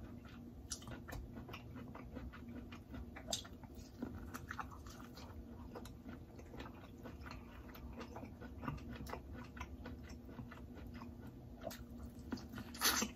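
Eating sounds: chewing and small wet mouth clicks, with a louder bite into a boiled corn cob near the end.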